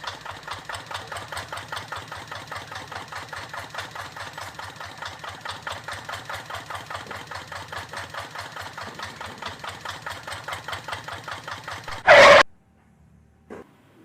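Mini tractor's small engine chugging in an even rhythm of about five beats a second, then a loud short burst about twelve seconds in, after which the engine sound stops.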